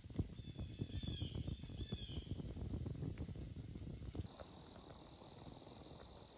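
A rough, low crackling rumble for about the first four seconds, with a few short high chirps of birds above it. The rumble then drops away suddenly, leaving a steady high-pitched insect trill over quiet woodland.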